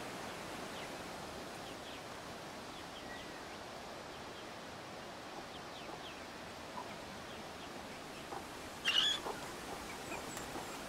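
Outdoor garden ambience: a steady hiss with faint, scattered high chirps of small birds, and one short, louder sharp chirp or squawk about nine seconds in.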